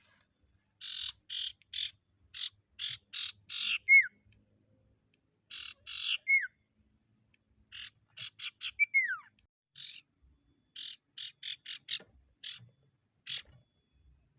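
Sirtu (common iora) singing: quick runs of short, harsh chattering notes, broken three times by a clear downward-sliding whistle.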